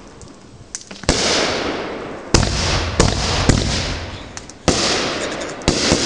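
Aerial firework shells bursting in a quick series: about six sharp bangs, each trailed by a hiss that fades away.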